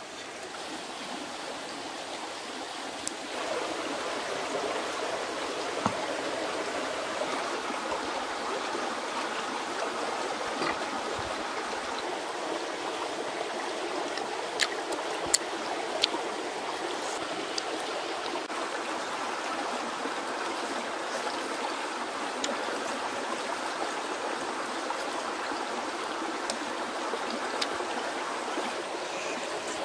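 Steady rushing noise of running water, a little louder from about three seconds in, with a few short sharp clicks scattered through it.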